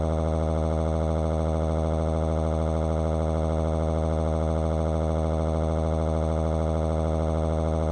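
A steady, loud, buzzing electronic tone that holds one pitch and level without change.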